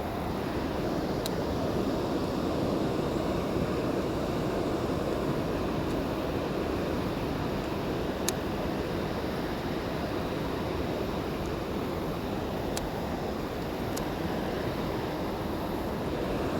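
Steady rushing outdoor noise, such as water or wind, with a few faint sharp ticks scattered through it.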